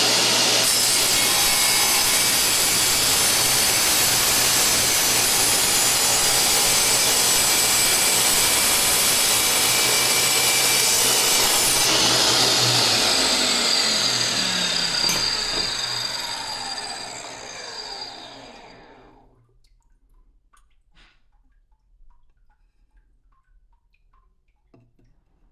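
Wet tile saw running, its water-cooled diamond blade spraying as a ceramic tile is cut. About halfway through the motor is switched off and the blade winds down with a falling whine, fading out over several seconds. A few faint clicks follow.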